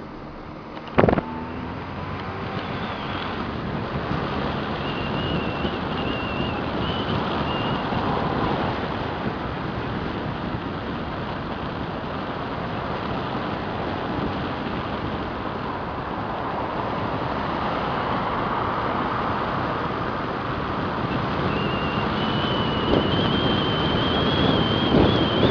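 Wind rushing over the microphone of a camera held out of a moving car's window, over the car's road noise. There is a sharp knock about a second in, and a thin wavering whistle comes and goes.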